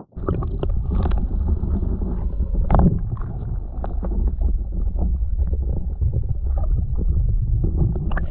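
Boat under way on open water, with wind buffeting the microphone in a heavy, crackling low rumble. It starts and cuts off abruptly.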